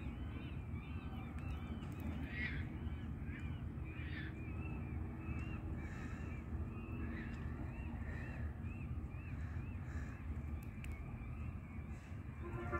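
Birds calling in a long series of short, high, repeated calls, several a second, with a few louder calls in the first few seconds, over a steady low background rumble.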